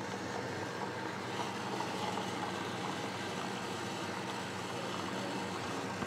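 Costa self-serve coffee machine running as it dispenses coffee and milk into a paper cup: a steady low motor hum under the splashing of the pour.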